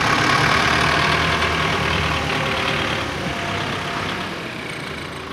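Diesel tractor engine running loud and close as a front-loader tractor drives across the silage pile, easing off gradually in the second half as it moves away.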